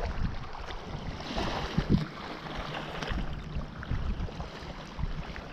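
Wind buffeting the microphone in an uneven low rumble, over a steady wash of surf.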